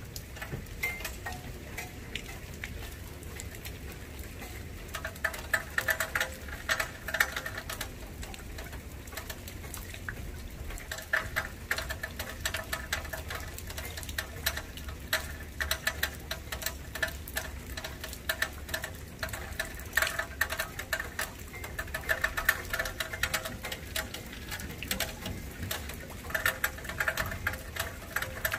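Rain falling and pattering on a nearby surface, with many sharp drop hits, over a low steady rumble.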